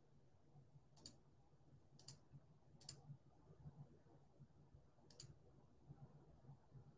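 Near silence: room tone with a low hum and four faint, sharp clicks, three in the first three seconds and a fourth about two seconds later.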